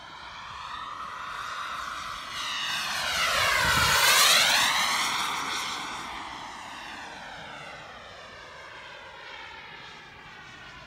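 Model jet turbine (a VT80BL in an HSD Mirage 2000) whining as the jet flies past in a single pass. It grows louder to a peak about four seconds in, then fades away.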